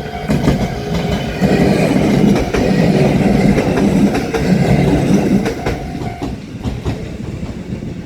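A train passing over a level crossing, its wheels clacking over the rail joints. It is loudest through the middle and fades near the end. The crossing's warning bell rings along with it and stops about six seconds in.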